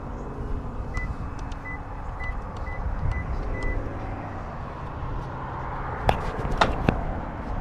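Six short beeps from a fuel pump's keypad, about half a second apart, then three sharp clicks near the end, over a low steady rumble.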